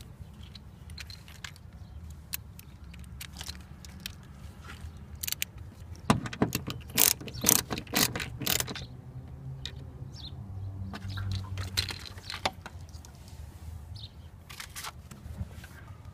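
Small clicks, clinks and knocks of hand tools and small metal parts being handled during car wiring work, with a cluster of louder clicks about six to nine seconds in.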